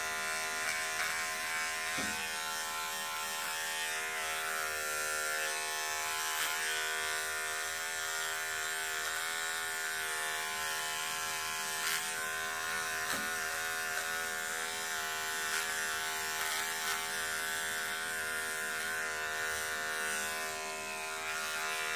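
Electric beard trimmer buzzing steadily as it shaves loose fibres off a sock, with a few faint clicks now and then.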